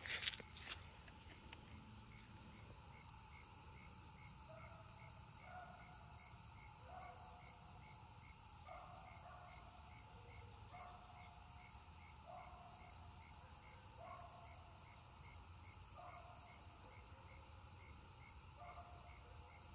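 Faint night insect chorus: a steady high chirping, about two chirps a second, with a lower short call repeating every second or two. A few knocks at the very start.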